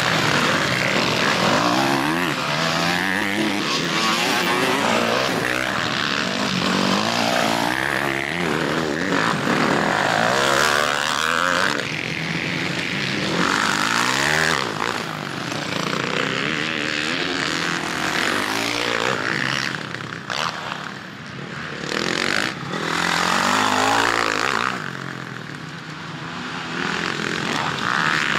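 Several motocross dirt bikes racing past on a dirt track, their engines revving up and falling back again and again through the gears. The sound eases off briefly about three-quarters of the way through.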